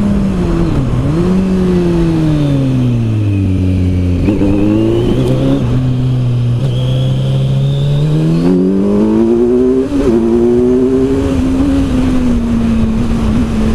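Kawasaki Z900's inline-four engine through an Arrow aftermarket exhaust, heard from the bike under way. The revs drop in steps through downshifts to a low steady note, then climb again with quick upshifts and settle near the end.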